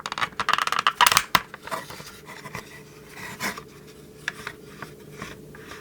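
Hard plastic toy parts of a 1987 G.I. Joe Cobra M.A.G.G.O.T. clicking as they are pushed down over posts and ratchet into place: a quick run of clicks in the first second and a half, then lighter, scattered handling clicks.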